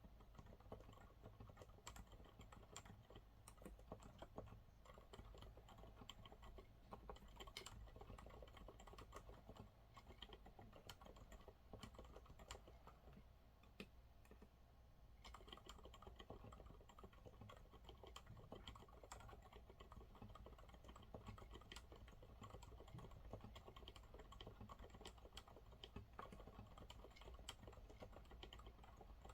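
Continuous quiet typing on a Monsgeek MG108W mechanical keyboard with TTC silent brown switches: dense, soft keystroke clicks that ease off briefly about halfway through.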